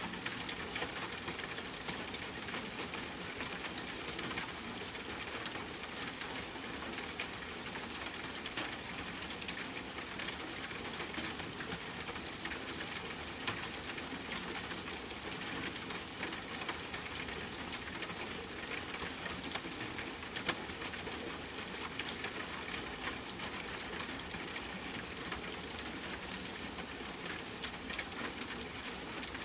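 Steady rain falling, a dense patter of individual drops hitting a surface.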